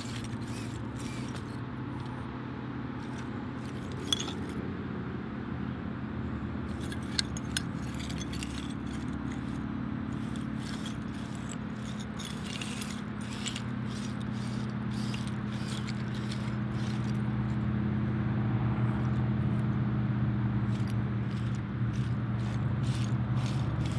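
Traxxas TRX-4M small-scale RC crawler's electric motor and gears humming steadily as it crawls over a pile of broken tiles, with the shards clinking and scraping under its tyres. Two sharper clacks come about four and seven seconds in, and the drive grows louder in the second half.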